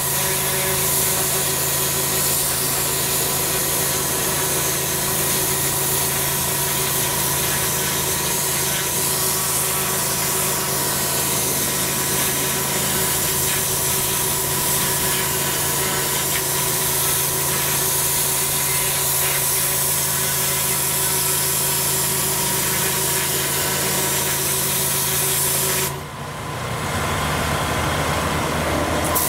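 Pressure washer with a twin-headed turbo lance blasting water onto block paving: a loud, steady hiss of the jet over the machine's low hum. Near the end the spray cuts out for about three seconds, leaving only the hum.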